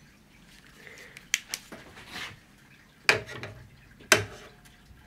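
A few sharp clicks and knocks from a steel rule being handled on a 3D printer's glass bed. Two faint ones come about a second and a half in, and louder ones about three and four seconds in, the last leaving a short metallic ring.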